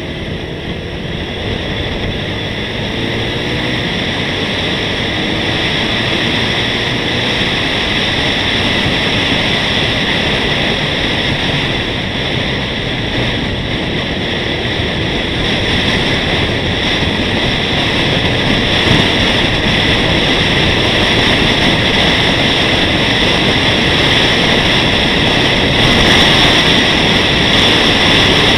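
Wind rushing over an action camera's microphone while riding at road speed, with a motorcycle engine underneath that rises in pitch in the first couple of seconds. The rush grows gradually louder as speed picks up.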